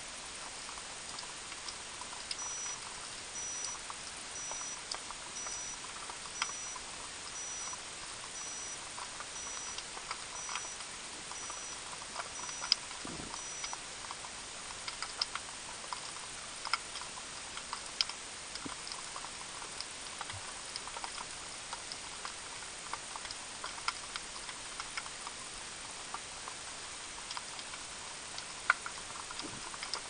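Underwater ambience picked up by an action camera in its waterproof housing: a steady hiss dotted with irregular sharp clicks and crackles. A faint high beep repeats about every two-thirds of a second, starting a couple of seconds in and stopping about halfway through.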